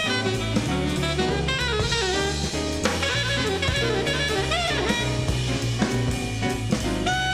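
Big-band jazz with South African township rhythms: saxophones and horns playing over walking bass and a drum kit, played from a vinyl record.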